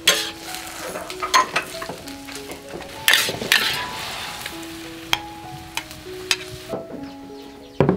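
Leafy greens stir-frying in a wok over a wood fire: steady sizzling, with a metal spatula scraping and striking the wok again and again, and a louder hiss a little after three seconds.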